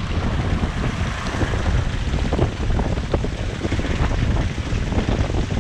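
Car driving on a rough track: a steady low rumble with wind buffeting the microphone and scattered short knocks.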